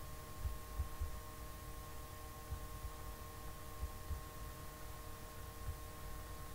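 Faint steady electrical hum made of several thin tones, over a low rumble with soft, irregular low thumps.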